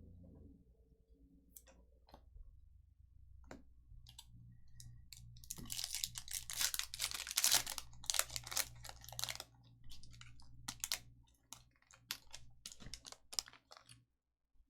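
Trading cards being handled and flicked through: a run of quick clicks and snaps. They start sparse, come thick and fast in the middle and thin out near the end.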